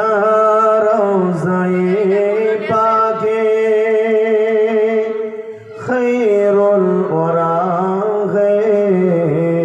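A man singing an Urdu naat unaccompanied into a microphone, drawing out long, wavering held notes without words in two phrases, with a short breath break about six seconds in.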